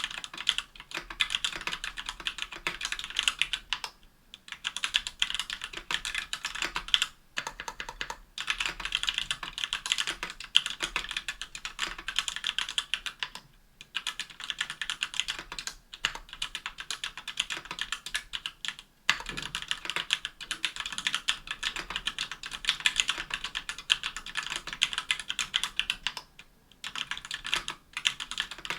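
Continuous fast typing on a 60% aluminium mechanical keyboard with stock Everglide Amber Orange linear switches, an aluminium plate and GMK keycaps: rapid bottom-out clacks in runs of several seconds, with brief pauses between bursts.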